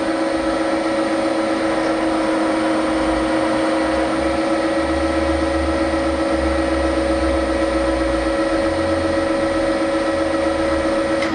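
Adcock & Shipley-built Bridgeport milling machine's motor and spindle running steadily, a smooth whir over a constant hum with no knock: the repaired spindle head runs free of the knock it was fixed for.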